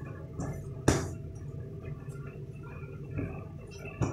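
A thick besan and semolina mixture being stirred in a steel pan with a silicone spatula, with a sharp clink about a second in and a smaller one near the end.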